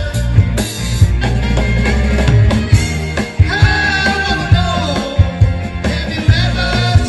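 A band playing a rock-style pop song, with a steady drum beat, bass and a melody line over it.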